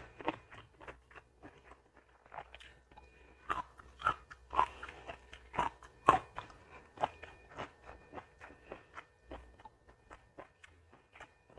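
A person biting and chewing crunchy food close to the microphone, mukbang-style, with irregular sharp crunches about one or two a second.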